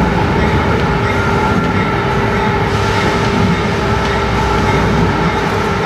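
Diesel locomotive running under way, heard from inside its cab: a steady loud rumble of engine and wheels on rail, with a steady tone running through it.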